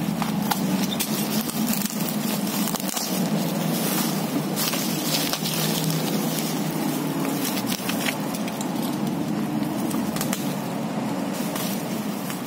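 Thick plastic bubble wrap and packing tape crinkling and crackling as a parcel is pulled open by hand, with a steady low hum underneath.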